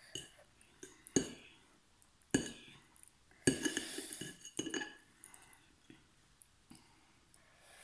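Metal fork clinking and scraping against a ceramic plate while twirling and lifting noodles: a few sharp clinks, with a denser rattle of scraping about three and a half seconds in.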